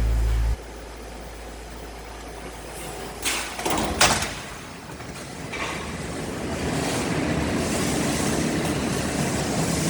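Evaporator tube-expanding machine in a refrigerator factory. A loud steady hum stops about half a second in, two sharp metallic knocks follow around three and four seconds in, and a steady mechanical running noise builds again from about halfway.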